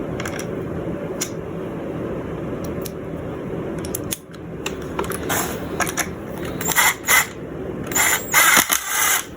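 Screw extractor being turned in a stripped Kel-Tec screw head: a steady mechanical hum for about four seconds, then a string of sharp clicks and short scraping rasps as the tool bites and the screw begins to come free.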